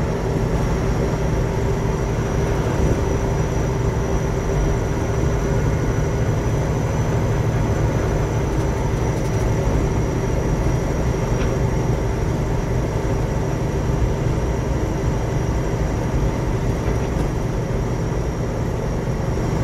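Peterbilt 359 truck's diesel engine and drivetrain running steadily under way, a low rumble heard from inside the cab.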